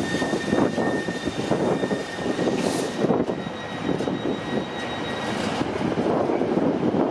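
Container flat wagons of an intermodal freight train rolling past: a steady rumble of wheels on rail with irregular clattering, and a thin steady whine that stops about five and a half seconds in.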